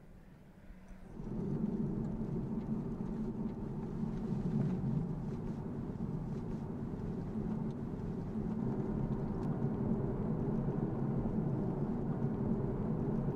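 BMW 435i Gran Coupe's turbocharged straight-six heard from inside the cabin, running steadily under way with road noise. It comes in about a second in, after a quiet moment.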